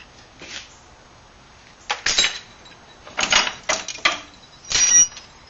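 Metal hand tools clattering and clinking against one another and the wooden shelf of a toolbox as they are handled, in several short bursts, the last one near the end with a brief metallic ring.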